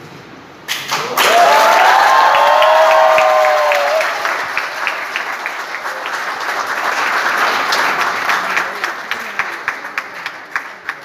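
Audience applauding, starting suddenly about a second in, with a few voices cheering over it in the first few seconds; the applause thins to scattered single claps near the end.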